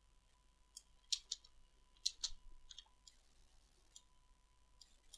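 Quiet clicks of a computer mouse and keyboard, in small clusters through the first three seconds and a few more near the end, over a faint steady tone.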